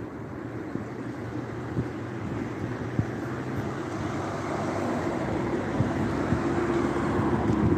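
A vehicle's steady, low humming drone that grows gradually louder.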